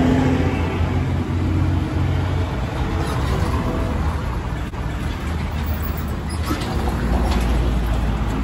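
Street traffic: a steady low rumble of vehicle engines running by.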